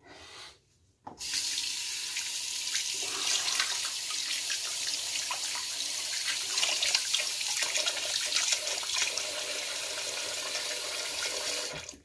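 Bathroom tap running into a sink, turned on about a second in and shut off abruptly near the end, the stream splashing unevenly as something is rinsed under it.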